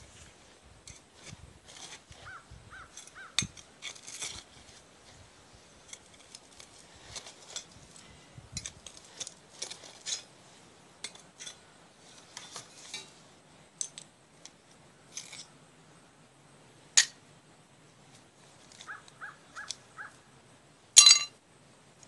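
Digging through dump debris full of broken glass and bottles: irregular scrapes, clicks and glass clinks from the tool and the shards, with one sharp, ringing clink near the end.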